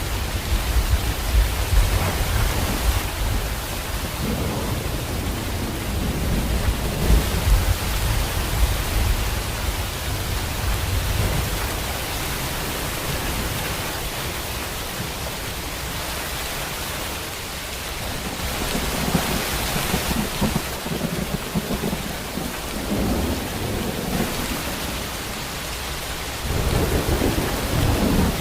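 Steady heavy rain with rolling thunder rumbling underneath, the rumble swelling and fading over several seconds and building up again near the end.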